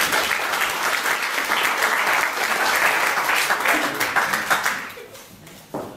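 Audience applauding: dense, many-handed clapping that dies away about five seconds in.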